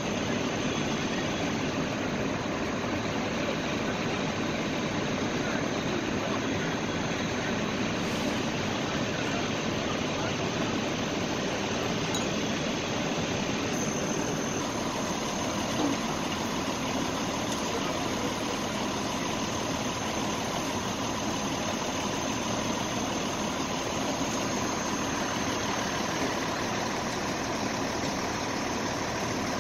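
Fire apparatus diesel engines running steadily at a fire scene, a continuous engine drone with a faint steady whine on top.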